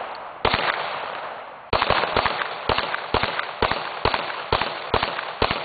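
10 mm semi-automatic pistol firing single shots, each followed by a ringing echo: one shot about half a second in, then after a short pause a steady string of about ten shots, roughly two a second.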